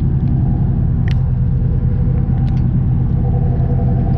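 An engine running steadily with a low, even rumble, plus a couple of faint clicks.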